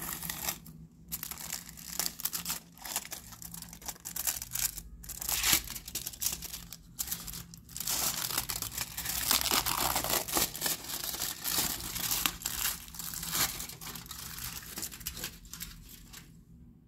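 Foil wrapper of a chocolate bar crinkling and tearing as it is peeled open by hand, in irregular spurts, busiest midway and stopping shortly before the end.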